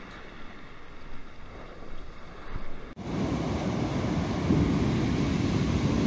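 Waves washing on the shore with wind on the microphone; about three seconds in it jumps to a much louder, steady rush of wind and surf.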